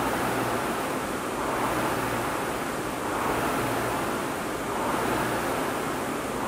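Indoor air-resistance rowing machine in use: the fan flywheel whooshes, surging with each drive and fading on the recovery, about once every 1.7 seconds.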